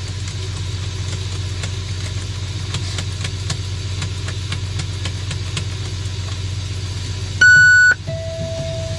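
Kenworth C500's Cummins ISX diesel idling steadily, with a few light clicks of handling at the dash. About seven and a half seconds in, a loud electronic beep sounds for half a second, followed by a steady lower-pitched tone.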